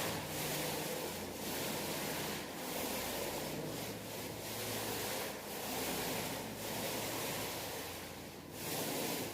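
Paint roller rubbing up and down a wall in repeated strokes, about one a second.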